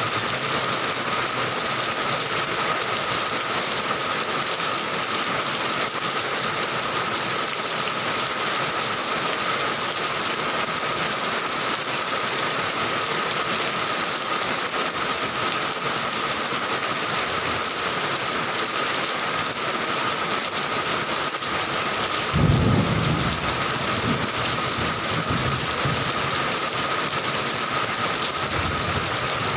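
Heavy rain falling steadily, with a low roll of thunder starting suddenly about three quarters of the way through and rumbling on for a few seconds.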